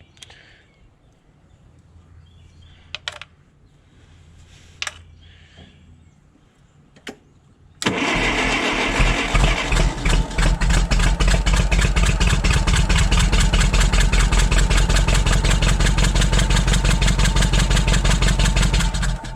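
The forklift's propane engine turning over for about eleven seconds, with a fast, even pulsing beat; it comes in suddenly about eight seconds in and cuts off abruptly. A spark plug sits outside the head in its wire boot so it can be checked for spark. A few light clicks of handling come before it.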